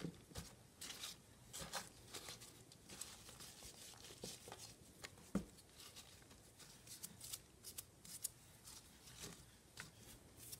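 Faint, irregular rustling and crackling of shredded cardboard bedding being spread by a gloved hand over a worm bin.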